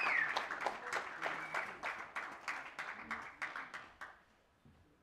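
Audience applauding, the clapping thinning out and dying away about four seconds in.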